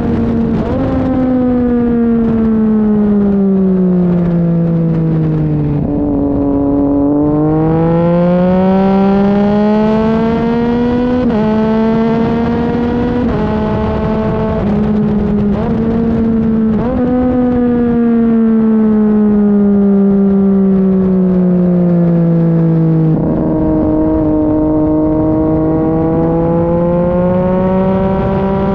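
Sport motorcycle engine at track speed, heard from a camera mounted on the bike, over steady wind rush. The engine note falls for several seconds, climbs again with a few sudden steps as gears change, falls away again and drops sharply near the end before slowly rising.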